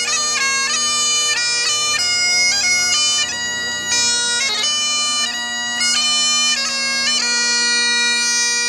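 Scottish Highland bagpipe playing a tune: a stepping chanter melody with quick grace-note flicks over the steady hum of the drones.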